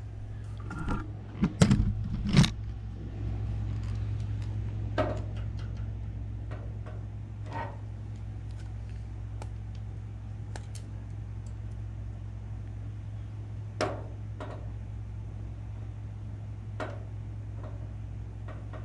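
Hand rivet squeezer and tool handling on the aluminium stabilizer skin: scattered sharp metallic clicks and clanks, a loud cluster about two seconds in, then single clicks every few seconds, over a steady low hum.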